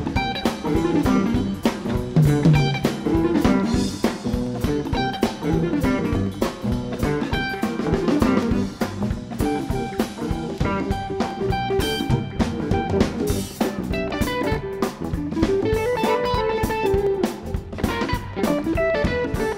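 Live blues-rock band playing an instrumental passage: guitar lines over a drum kit and bass.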